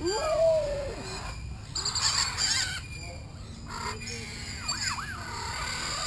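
Several captive birds calling: a drawn-out gliding call at the start, harsh squawks about two to three seconds in, and a few short chirps near the five-second mark.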